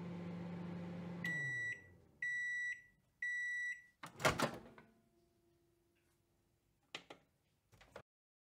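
Microwave oven finishing its cycle: the running hum falls away, then three long high beeps about a second apart. The door is then opened with a sharp clunk, the loudest sound, followed by a couple of faint clicks near the end.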